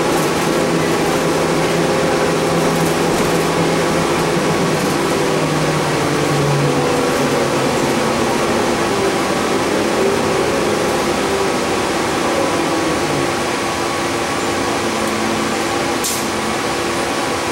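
Interior noise of a city transit bus under way: a steady mechanical drone and hum from the engine, running gear and ventilation. A low tone rises a little around the middle, and there is one brief click near the end.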